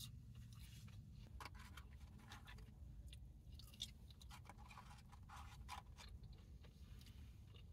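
Faint eating sounds: quiet chewing of fries with scattered small clicks and soft crunches.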